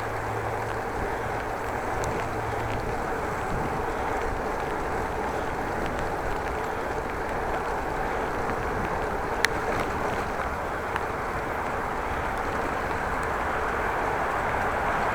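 Steady rush of wind on the microphone and road noise from riding a bicycle, with a single sharp click about nine seconds in.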